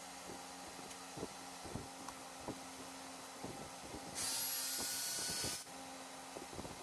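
Scattered light clicks and knocks of parts being handled on a workbench. About four seconds in comes a short, high-pitched whirring hiss from a small high-speed power tool, lasting about a second and a half and then cutting off suddenly.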